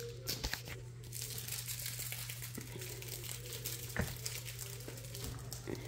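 Plush fried-egg dog toy with a crinkle insert crinkling continuously as it is handled and chewed, with a few sharper crackles.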